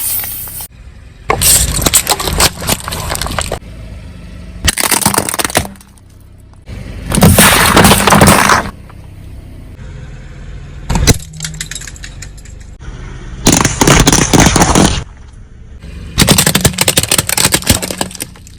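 A car's tyres crushing brittle objects: about six separate crunching, cracking bursts, each a second or two long, with a low steady hum in the gaps between them.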